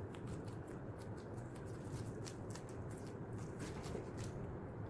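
Roasted seaweed sheet (gim) crackling and rustling under the hands as a kimbap roll is rolled up and pressed, a string of small crisp crackles.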